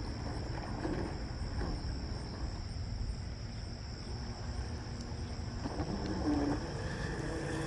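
Wind rumbling on the microphone under a steady high-pitched drone of insects, with faint brief tones near the end.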